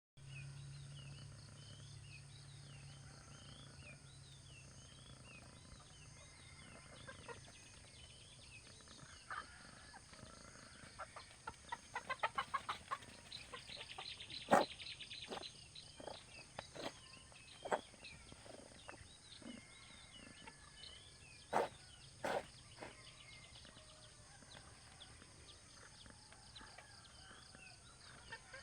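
Chickens clucking and chirping over a steady high drone, with a fast run of clucks about halfway through and a few sharp clicks after it.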